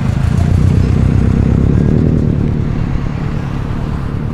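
A modified car's engine and exhaust running loud and low as the car drives off, loudest about a second in and then easing slightly.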